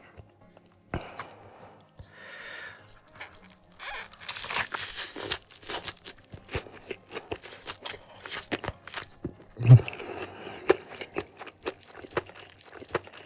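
A person biting and chewing crispy fried chicken with sambal, a dense run of crunching and wet mouth sounds starting about four seconds in. There is a single louder low thump near the end.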